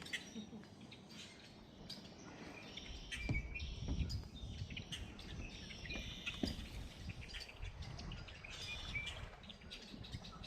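A chorus of red-winged blackbirds, many short calls overlapping throughout. A low rumble comes in about three seconds in and runs under the calls.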